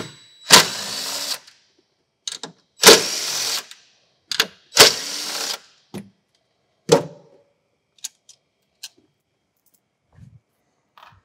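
Cordless driver spinning out the battery hold-down bolts: three short runs of under a second each, each starting with a sharp hit. A few light clicks and knocks follow.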